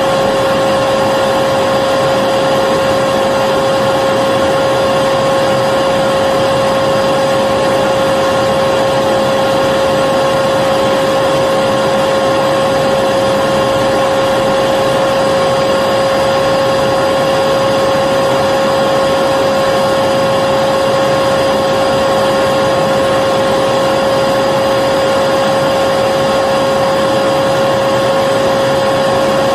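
Vacuum cleaner running steadily: a constant whine over the rush of air.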